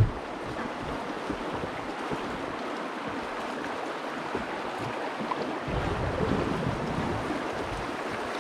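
River water rushing and splashing around a raft in a small, rocky rapid: a steady wash. A heavier low rumble joins in past the middle.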